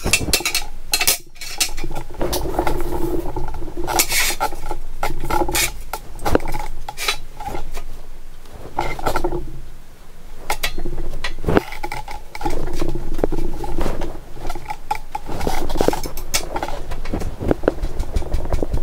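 Steel mower frame rails and a plate being moved about on a steel work table: repeated clanks, clinks and scrapes of metal on metal, with a hum underneath that comes and goes.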